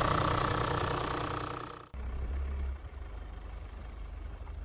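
Diesel 4x4 engine idling close by, a steady drone with a high whine over it. About two seconds in it cuts off abruptly, and a fainter low rumble follows from the Mitsubishi Pajero's 3.2 diesel.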